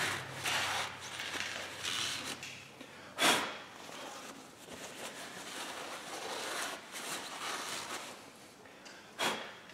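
Shop rag rubbing and wiping inside the cleaned wheel-bearing bore of a steering knuckle, in uneven soft strokes. Two short, louder rushing sounds stand out, about three seconds in and near the end.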